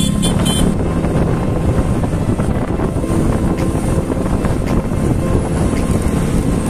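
Wind buffeting the microphone over the steady rumble of a moving vehicle.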